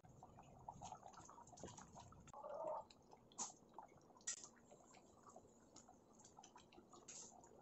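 Thick cauliflower kurma gravy simmering in a pan, its bubbles bursting in faint, irregular plops, with a few louder pops.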